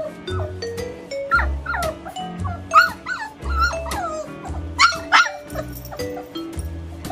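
Month-old Siberian husky puppies yipping and whining: several short calls that slide down in pitch, heard in a few pairs, over background music.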